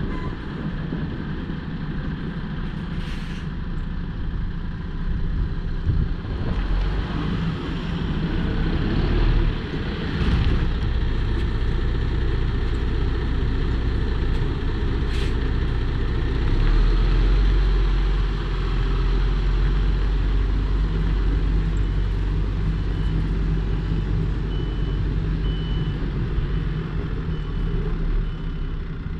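A 2014 MAN TGX 26.440 tractor unit's 12.4-litre straight-six diesel running as the truck drives slowly across the yard, loudest about halfway through as it passes close. There are a few brief sharp sounds along the way, and near the end a faint beep repeats.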